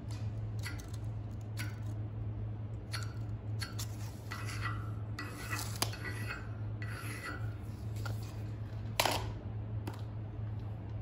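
Chalk scratching across a steel plate in a series of short strokes as lines and circles are drawn, with one sharper knock about nine seconds in, over a steady low hum.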